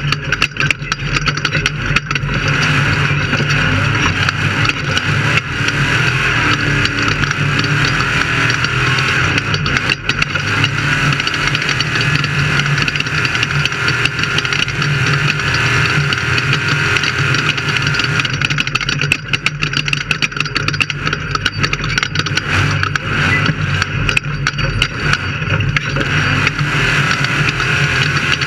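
Off-road race vehicle's engine running steadily, with a constant low hum and many short knocks and rattles over it.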